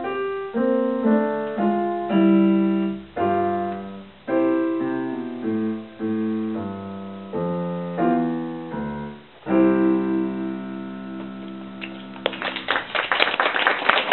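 Roland digital piano playing a slow piece of chords and single notes, ending on a long held chord that fades away. Applause breaks out about twelve seconds in as the piece ends.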